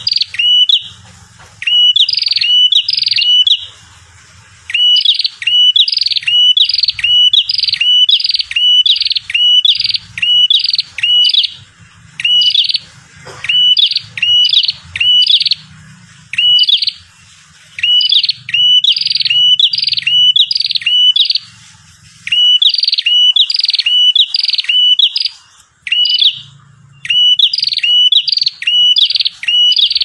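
Bar-winged prinia (prenjak jawa) song played as a lure call. Sharp, loud chirping notes repeat at about two a second in phrases, broken by short pauses.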